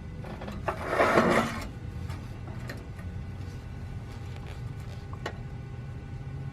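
A brief scraping rub lasting just under a second, about a second in, followed by a few light clicks, over a steady low hum.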